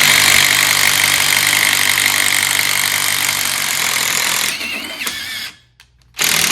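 DeWalt DCF787 impact driver boring a 5/8-inch Irwin Speed Bore spade bit through a 2x4, its hammer mechanism impacting rapidly all through the cut because the bit's load is too heavy for plain rotation. The sound drops off about four and a half seconds in and stops, then a short second run comes near the end.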